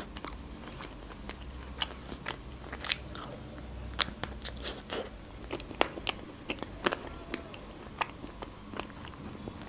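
Close-up eating sounds of a chocolate-coated Magnum ice cream bar: the chocolate shell cracking under bites, with soft chewing and scattered sharp mouth clicks about once or twice a second.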